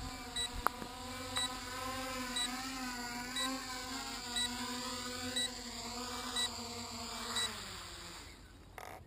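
Small quadcopter's electric motors and propellers humming with a slightly wavering pitch, then spinning down and stopping near the end. A short high beep sounds about once a second throughout, with a couple of sharp clicks early on.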